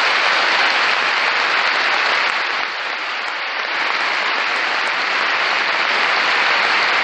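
A large audience applauding: a dense, steady clatter of many hands clapping, which eases slightly a few seconds in and then swells back.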